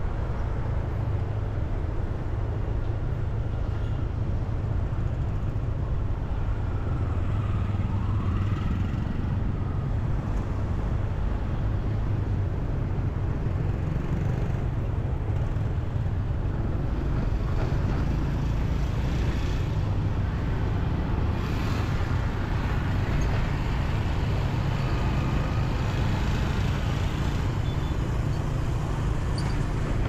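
Road traffic heard from within the flow of a busy city street: a steady low rumble of motorbike and car engines and tyres, with vehicles passing close by.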